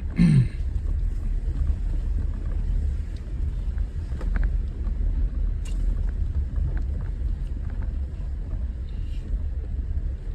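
Jeep driving slowly on a muddy dirt trail: a steady low rumble of engine and tyres, with scattered small clicks and knocks. A short, louder sound falling in pitch comes right at the start.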